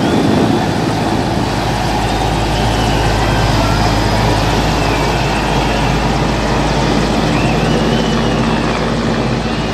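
Mil Mi-17 military transport helicopter's rotor and twin turbine engines running steadily as it climbs away, a dense, even rumble with a low hum.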